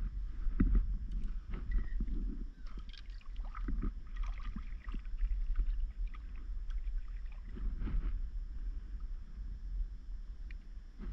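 Stand-up paddleboard paddle stroking through the water: several irregular strokes with splashing, over a steady low rumble.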